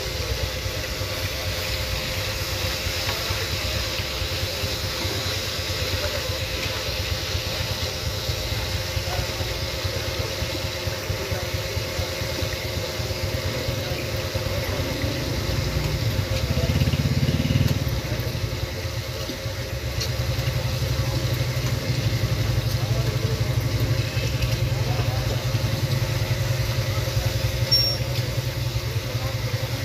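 Chapli kababs deep-frying in a wide, shallow pan of hot oil, sizzling steadily, over a continuous low engine-like rumble that swells briefly about two-thirds of the way through.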